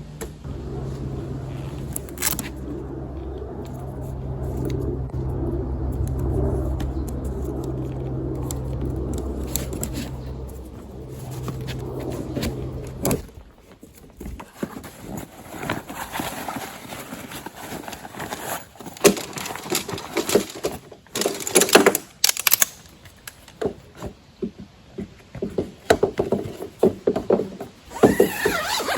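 A steady low engine-like hum that cuts off abruptly about halfway through, followed by scattered rustling, clicks and knocks of camping gear being handled.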